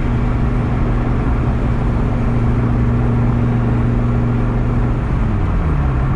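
Dodge Viper GT's 8.4-litre V10 engine running at a steady cruise, with road noise underneath. About five seconds in, the engine note falls as the revs drop.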